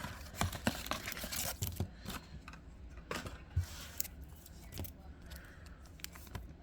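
Trading cards being handled: light clicks and scrapes of cards being shuffled and slid against one another, busier in the first two seconds and thinning out after.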